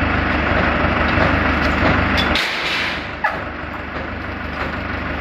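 Tractor engine running steadily. About halfway through, the low rumble drops away with a brief hiss, followed by a single sharp knock.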